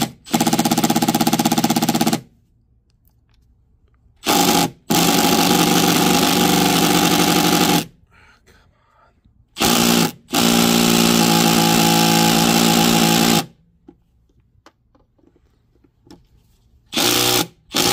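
Milwaukee FUEL brushless cordless impact driver with a Torx T30 bit, hammering bolts on a car's charge port. It runs in three bursts of two to four seconds and a brief one near the end, with pauses between.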